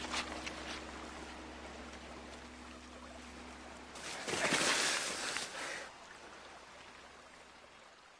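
Running water of a river over stones, with a few footsteps on gravel in the first second. About four seconds in comes a loud rushing whoosh lasting about two seconds.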